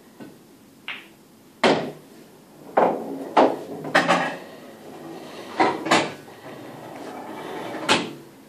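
Pool balls clacking: a series of about seven sharp, separate knocks of ball on ball and ball on table.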